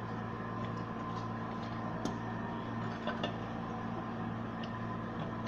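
Steady electrical hum, typical of an arc-welding transformer switched on and idling, with a few light metallic clicks about two and three seconds in.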